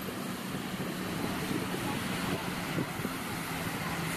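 Beach ambience: wind on the microphone and surf noise, with a steady low engine drone that shifts pitch slightly a little past halfway.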